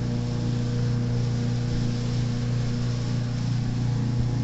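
A steady low mechanical hum that holds one pitch throughout.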